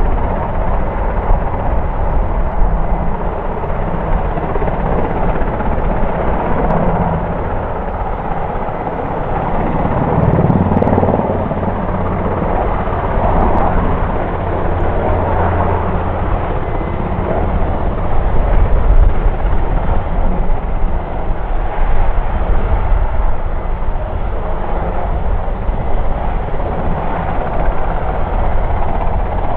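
NH90 military helicopter running steadily as it hovers and manoeuvres low, its rotor thump and turbine noise loud throughout, swelling a little about a third and two thirds of the way through.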